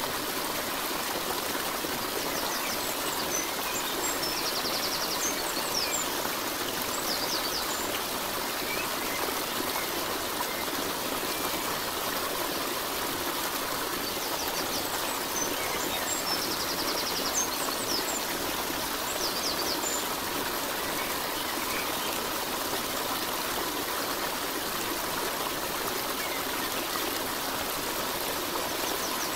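Steady sound of running stream water, with faint high chirps that come and go every 14 seconds or so.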